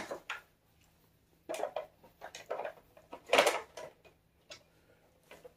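Hard plastic toy parts being handled: a scattering of short clicks and knocks, the loudest about three and a half seconds in.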